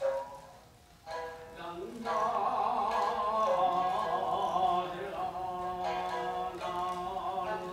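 Shamisen notes plucked, then from about two seconds in a man's long, wavering held chant in traditional puppet-theatre narrative style, with the shamisen under it.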